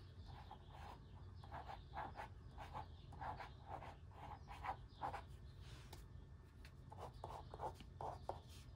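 Graphite pencil sketching on cream sketchbook paper: a run of short, faint scratching strokes, a few a second, with a brief pause about six seconds in.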